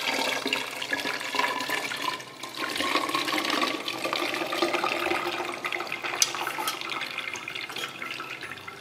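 Pulpy orange juice poured from a Thermomix steel mixing bowl through its steamer basket into a pitcher: a continuous splashing stream, with a faint tone that rises as the pitcher fills, dipping briefly about two seconds in and thinning near the end as the pour runs out.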